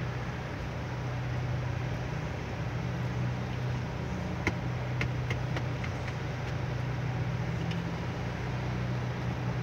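Steady low hum of a car's engine and road noise heard inside the cabin while moving slowly in heavy traffic. There is a handful of light clicks about halfway through.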